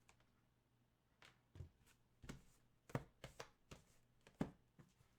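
Faint, irregular taps and knocks from handling objects on a table, about half a dozen light strikes spaced unevenly.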